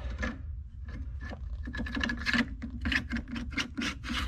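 Metal clicks and light knocks as an AR-15 upper receiver is slid onto a reaction rod clamped in a bench vise and seated on the barrel extension. The clicks come faster in the second half.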